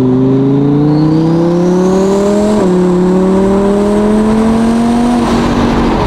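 Twin-turbocharged 2017 Audi R8 V10 Plus's 5.2-litre V10 pulling hard under acceleration, heard from the cabin with the windows down. The engine note climbs steadily through the gears, dropping with a quick upshift right at the start and another about two and a half seconds in, then levels off near the end, with a high turbo whistle rising over the first two seconds and holding above it.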